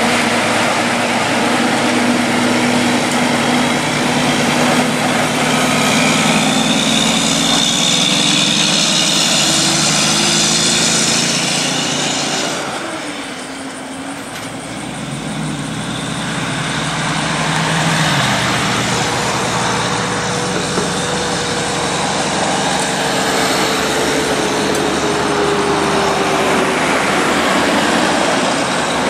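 Heavy diesel trucks passing close: the engines and tyre noise of Kenworth prime movers hauling oversize loads, dipping briefly about halfway before more trucks approach, with engine notes shifting slowly in pitch.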